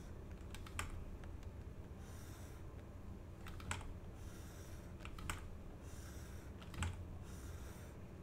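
Scattered computer key clicks, a handful of sharp single clicks at irregular spacing, over a faint steady low hum.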